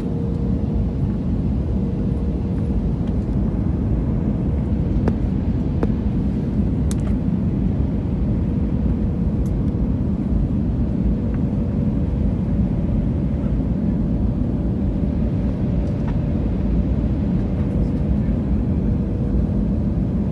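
Steady cabin roar inside an Airbus A320neo on approach to land: its Pratt & Whitney PW1100G geared turbofan engines and the rush of air, with a faint steady tone running through it.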